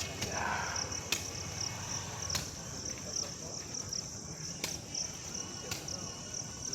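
Crickets chirping steadily in a high, pulsing trill, with four or five sharp clicks about a second apart.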